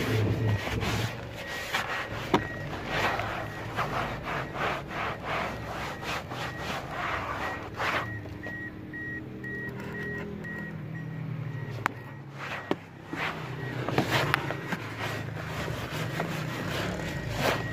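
Hand scrubbing fabric car-seat upholstery, short uneven rubbing strokes. A rapid, evenly repeating electronic beep runs under it and stops about halfway through.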